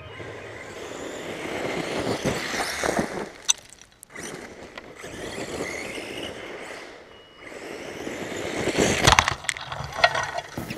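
Radio-controlled car running over loose wood chips, its motor and tyres scraping and churning unevenly, with a few sharp clicks of chips striking the car.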